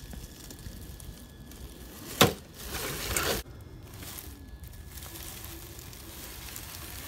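Dry fallen leaves crunching and crackling under a Traxxas TRX-4 Defender scale RC crawler. A sharp knock about two seconds in, then about a second of louder crunching that cuts off abruptly.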